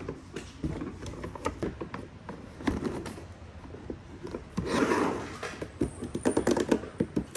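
Plastic toy kitchen pieces knocking and clicking as they are handled and fitted together, with a quick run of clicks a little before the end.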